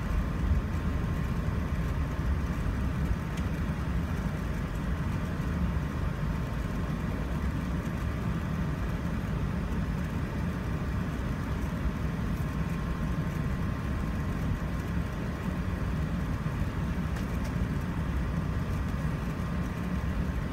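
Steady low rumble inside the cabin of an Airbus A380 taxiing, with its Rolls-Royce Trent 900 engines at low power and a faint steady high whine.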